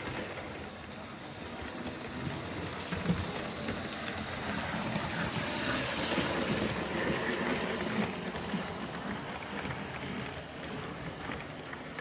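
Model BR Standard 5MT steam locomotive and its coaches running along the track past the microphone, growing louder to a peak about halfway through as the engine passes, then fading as the coaches roll by.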